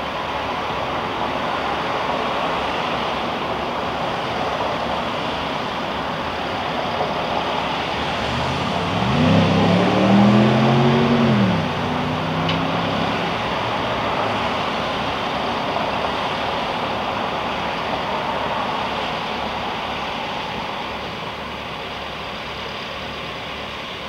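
A car passing close by about nine seconds in, its engine rising and then falling in pitch over about three seconds, over a steady rushing background noise.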